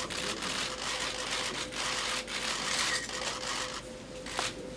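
Many press cameras' shutters clicking in rapid, overlapping volleys as photographers shoot a posed group, thinning out near the end. A faint steady hum runs underneath.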